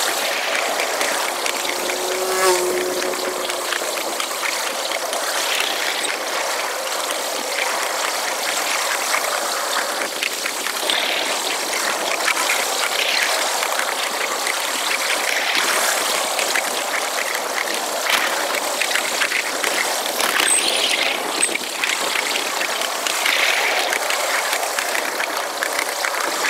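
Wulai narrow-gauge tourist trolley running along its track, its wheel and car rattle played back at six times speed as a steady, dense, high-pitched clatter.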